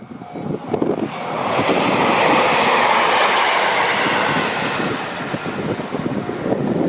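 A JR Hokkaido train passing the level crossing at speed: a rush of wheels and air that builds from about a second in, is loudest between two and four seconds and then eases, with many short knocks of the wheels on the track. The crossing's warning bell keeps ringing in a short repeated note.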